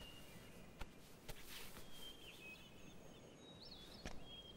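Faint birdsong: thin, high chirps and short whistled phrases that recur, with a few soft clicks.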